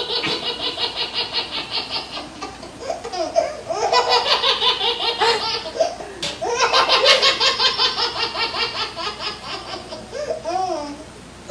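Laughter sound effect: rapid, rhythmic laughing in three bouts, each following briefly on the last.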